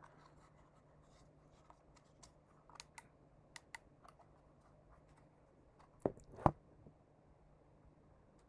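Faint scattered clicks and taps of a phone being handled, with two louder knocks about six seconds in, over a low steady electrical hum.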